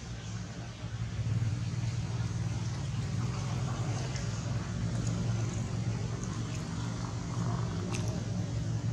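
An engine running steadily as a low, even drone, growing louder about a second in. A few faint clicks sound over it.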